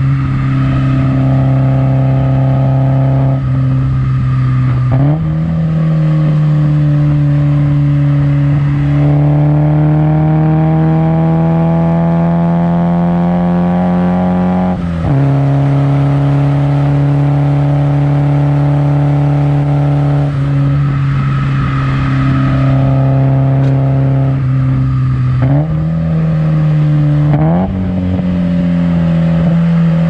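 Nissan KA24DE 2.4-litre four-cylinder running through 4-2-1 headers, a high-flow cat and an HKS Hi-Power exhaust while the car is driven. The drone holds steady, steps up in pitch about five seconds in and climbs slowly for ten seconds. It drops sharply halfway through, holds steady again, then steps up twice near the end.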